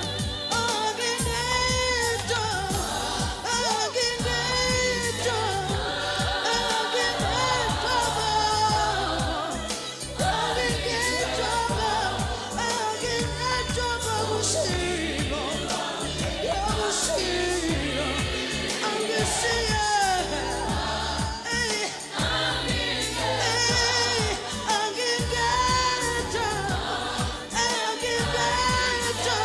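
Gospel song performed live: a woman sings lead with a group of backing singers, over electric keyboards and a steady beat.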